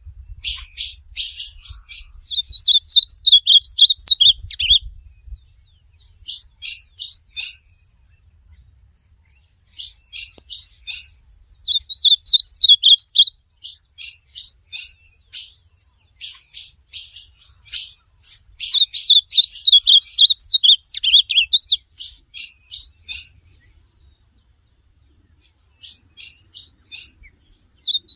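Ultramarine grosbeak (azulão) singing in repeated bouts every few seconds: each bout is a quick run of sharp ticking notes, followed in most bouts by a short, high, fast warbled phrase.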